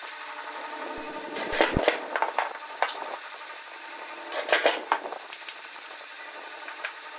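Hand work on wood: two short clusters of knocks and clicks, about a second and a half in and again about four and a half seconds in, with a few lighter ticks between, over a steady faint hum.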